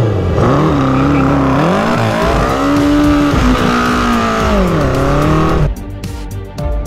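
Honda CB750 inline-four engine revved hard and held at high revs, its pitch rising and dipping, while the rear tyre spins in a burnout with a hissing squeal. Near the end it cuts off suddenly and background music takes over.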